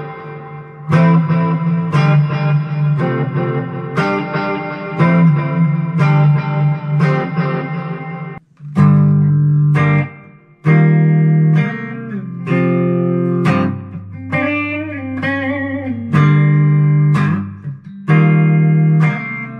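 ESP LTD EC-256 electric guitar with a capo, played through a Line 6 Spider V 60-watt amp: picked chords and single notes that ring on, with a short break about eight seconds in and a few wavering, bent notes a little after halfway.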